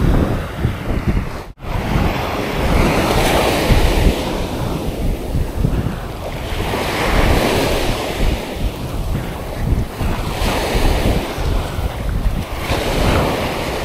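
Sea surf washing onto the beach, swelling and falling back every few seconds, with wind buffeting the microphone. The sound drops out for a split second about a second and a half in.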